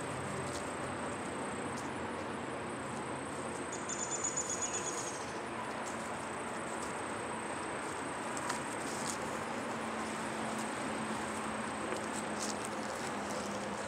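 Insects buzzing steadily, with a short, louder, rapidly pulsed trill about four seconds in, over a steady background hiss.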